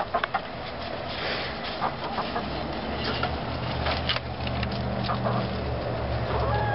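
A steady low motor hum comes in about two and a half seconds in and slowly grows louder, over scattered sharp clicks and short clucks from hens.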